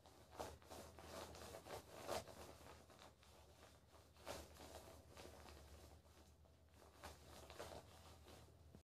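Faint, irregular clicks and taps of small parts being handled and set in place: a plastic pad and small magnets put onto a smartwatch's back, over a low steady hum.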